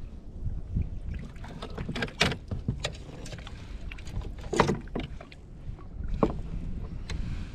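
Handling noise on a fishing kayak: a few sharp knocks, the loudest about two, four and a half and six seconds in, over a low steady rumble of wind on the microphone.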